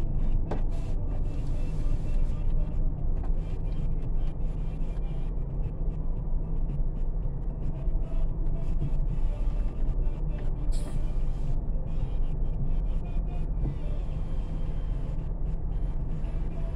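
Steady low rumble of idling car engines in stopped city traffic, heard from inside a car. A brief hiss about eleven seconds in.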